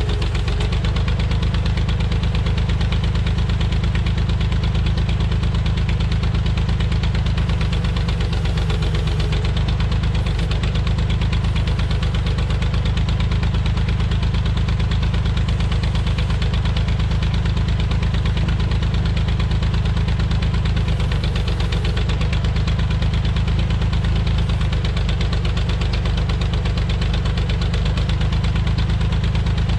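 Massey Ferguson backhoe tractor's engine idling steadily, a low, fast, even rumble. The engine is worn and due for a rebuild, with heavy blow-by.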